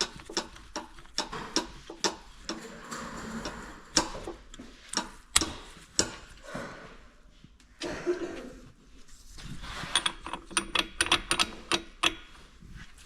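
Irregular clicks and knocks of hand tools and parts being handled during an engine teardown, some sharp and loud, with brief scraping between them.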